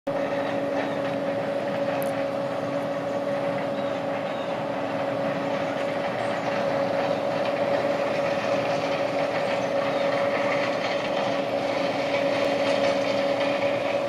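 John Deere combine harvester running steadily as it harvests standing corn, a constant mechanical noise with an even hum that does not change.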